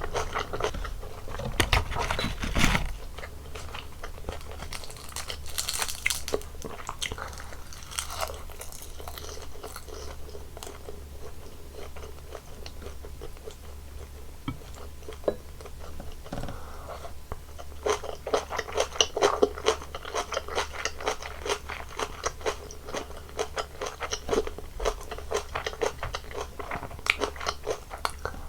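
Close-miked eating sounds of one person chewing a Korean home meal, with crunchy bites and wet, clicky mouth sounds; the chewing comes in quick runs of small crunches, thickest in the last ten seconds.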